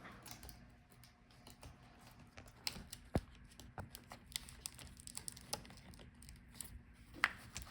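Faint, irregular small clicks and taps of hands and a tool working inside an opened laptop while the battery cable is unplugged.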